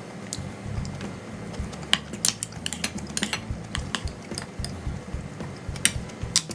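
Close-miked eating sounds: chewing with wet mouth clicks and smacks, a quick run of sharp clicks in the middle.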